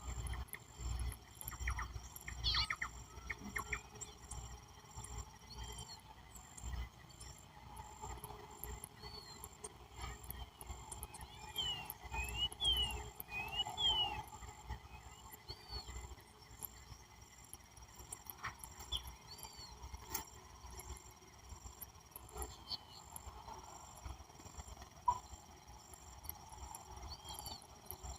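Birds calling in a dusk soundscape: scattered short, arched chirps, thickest around the middle. Under them runs a steady, rapidly pulsing insect chorus of crickets or similar, over a low, uneven rumble.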